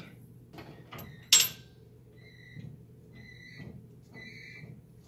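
A single sharp metallic clink about a second and a half in, then a run of short, high-pitched chirps, roughly one a second.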